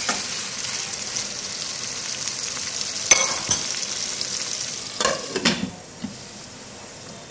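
Marinated chicken pieces with onion and green chilli sizzling in oil in a nonstick kadai as a steel ladle stirs them, with a sharp clink about three seconds in. A little past five seconds a glass lid clatters onto the pan, and the sizzle goes quieter and duller under it as the chicken is covered to cook on a medium flame.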